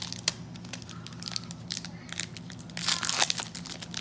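Foil trading-card pack wrappers crinkling as they are handled, with a louder run of crinkling about three seconds in.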